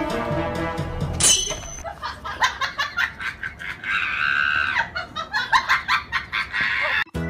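Background music stops about a second in with a falling whoosh sound effect. Then comes a long run of rapid, pulsing laughter, an added comedy laugh effect.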